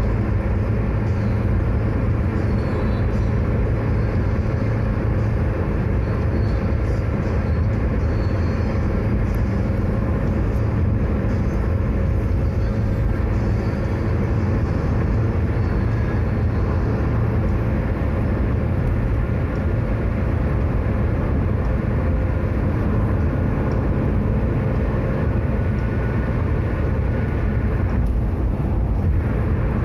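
Steady road and engine noise of a car driving along a toll highway, heard inside the cabin as an even low rumble.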